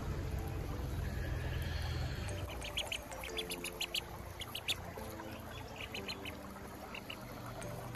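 Domestic duckling peeping: a string of short, high cheeps, most of them between about three and six seconds in. A low rumble runs under the first couple of seconds.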